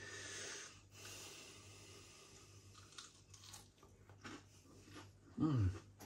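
Biting into and chewing a crispy breaded chicken fillet, with faint crunches, and a short low voice sound about five and a half seconds in.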